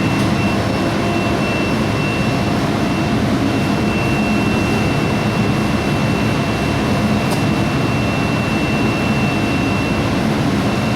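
A 200 kW induction melting furnace running: a steady high-pitched whine held at one pitch over a loud, even rumble and hiss.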